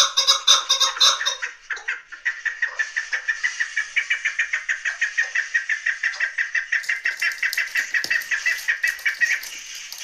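Chukar partridge calling: a rapid series of clucking notes, several a second. They are loud and full for the first second or so, then go on as a steady, thinner run that drops off near the end.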